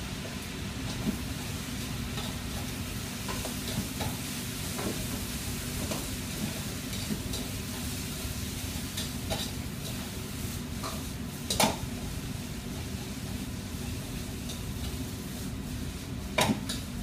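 Food sizzling and frying in several woks while metal utensils stir and scrape through it, with scattered clanks against the pans, the loudest two near the middle and near the end. A steady low rumble runs underneath.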